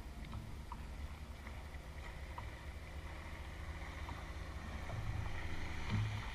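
Water lapping against an inflatable boat's hull, with a steady low wind rumble on the microphone and a few faint ticks.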